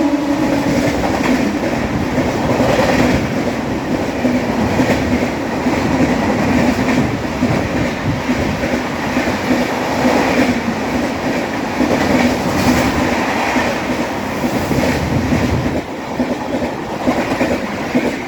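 Express passenger train's coaches passing at speed, wheels clattering over the rail joints in a steady rhythm. The sound drops back noticeably about two seconds before the end.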